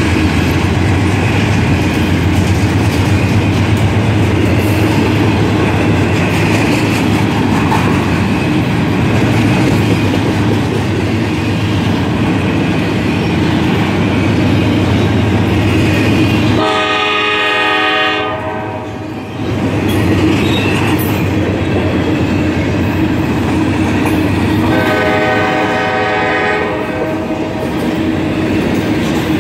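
Intermodal freight train passing close by: a steady rumble of the cars, with wheels clicking over rail joints. A diesel locomotive's multi-note air horn sounds twice, once about halfway through and again near the end, each blast about three seconds long.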